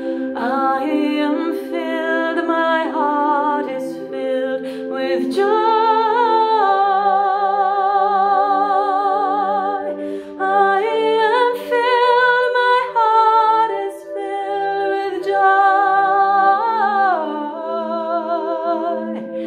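A woman singing wordless vowels, sliding between notes and holding long notes with vibrato. Under her is a soft instrumental accompaniment of sustained low chords that change every few seconds.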